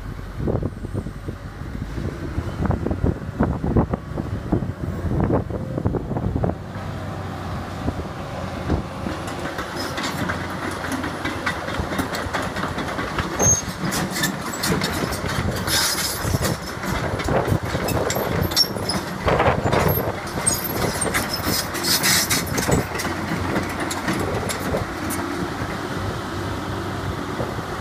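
Caterpillar 320C excavator's Cat 3066 diesel engine running, with irregular metallic clanks and rattles from the machine, busiest in the middle.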